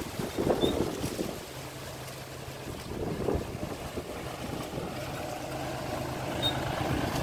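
John Deere 5103S tractor's three-cylinder diesel engine running steadily under load, pulling a disc plough through dry soil. There are a couple of brief gusts of wind on the microphone.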